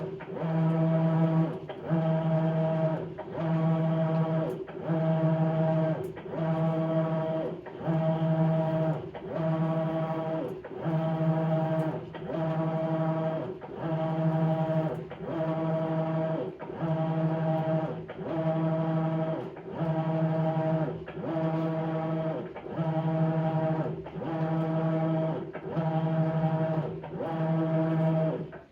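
Maytag Bravos XL washing machine's motor driving the wash action in an even back-and-forth rhythm: a pitched hum that swells and breaks about every second and a half, cutting off abruptly at the end.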